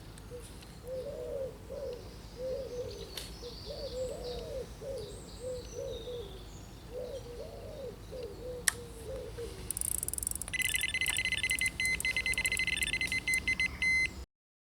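A pigeon cooing in a run of low, rising-and-falling notes, with small birds chirping faintly. About ten seconds in, a carp bite alarm starts beeping rapidly and continuously, louder than the birds: a fish is taking line.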